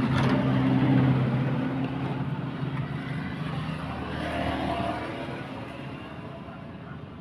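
A motor vehicle engine humming steadily, loudest about a second in and then slowly fading.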